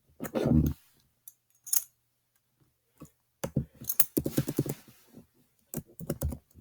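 Computer keyboard typing in short bursts of quick key clicks with pauses between, the busiest run in the middle.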